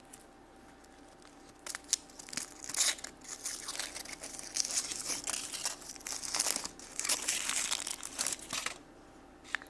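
Foil wrapper crinkling as it is peeled off a My Little Pony chocolate surprise egg, a run of crackles starting about two seconds in and stopping shortly before the end.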